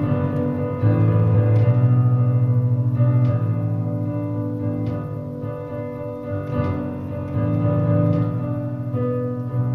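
Keyboard playing held piano-voiced chords, with new chords struck every second or so.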